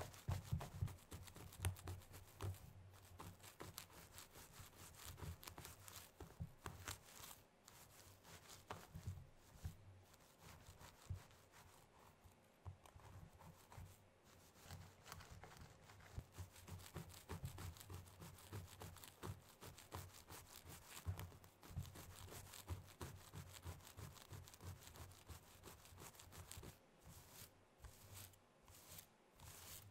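Very long fingernails scratching and rubbing through hair on a scalp: a faint, fast, continuous run of crackly scratching strokes, thinning briefly near the middle.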